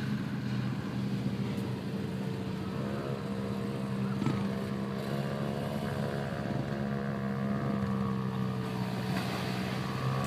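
Vehicle engine running steadily, with a second, higher engine note joining a few seconds in and wavering as it revs.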